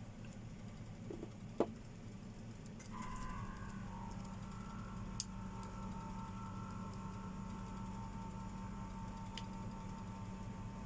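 A click, then a steady mechanical hum with a few fixed pitches starts about three seconds in and runs on evenly, with another light click a couple of seconds later.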